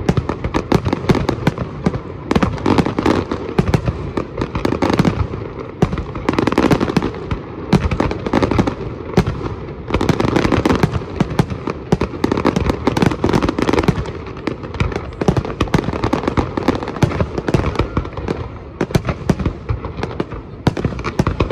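Fireworks display: a dense, unbroken barrage of aerial shells bursting and crackling, with many bangs overlapping.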